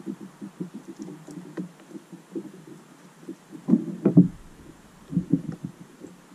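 Irregular dull knocks and taps, several a second, with a louder cluster about four seconds in and another just after five seconds: a great tit pecking at a plastic tube seed feeder.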